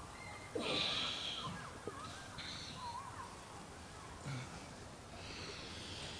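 A man breathing heavily in bed: three noisy breaths, about half a second in, about two and a half seconds in, and near the end, over faint wavering tones.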